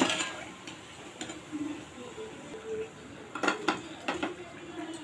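Metal slotted frying spoon knocking and scraping against a metal kadhai as fried raw-banana fritters are lifted out of hot oil. The taps come scattered, with a quick cluster of several knocks a little past the middle.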